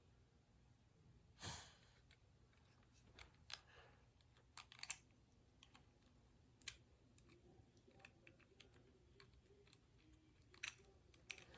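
Sparse small clicks and taps from the parts of a toy's woosh mechanism being handled and fitted, the loudest about a second and a half in, against near silence.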